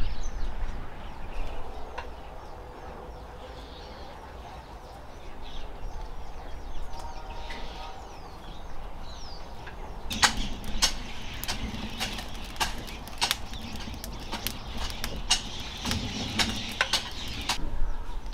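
Hands working dry, crumbly soil, planting seedlings: a run of crackles and scrapes as clods are broken and pressed down, starting about halfway through. Birds chirp faintly in the first half.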